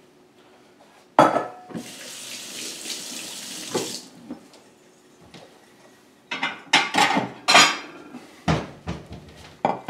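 A kitchen tap knocked on and run for about two seconds, then ceramic dishes clattering in several sharp knocks as a plate is fetched.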